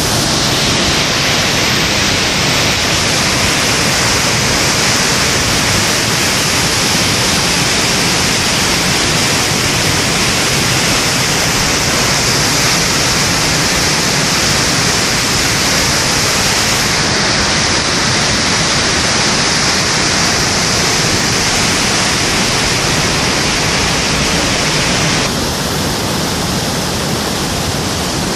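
Floodwater in a flash-flooding wadi rushing and churning down the riverbed: a loud, steady rush of muddy water. It turns slightly quieter and less hissy near the end.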